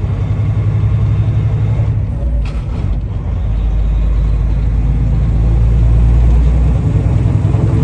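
Semi truck's engine and road rumble heard inside the cab while driving, a steady low drone, with a brief sharper noise about two and a half seconds in.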